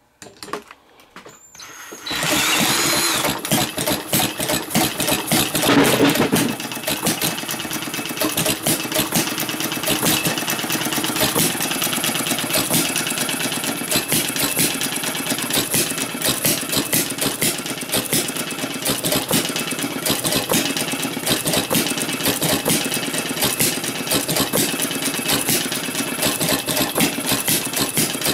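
Small vertical side-shaft, air-cooled gas engine catching about two seconds in and running fast with a rapid, even stream of firing beats. It is loudest for the first few seconds after it catches, then settles into a steady run.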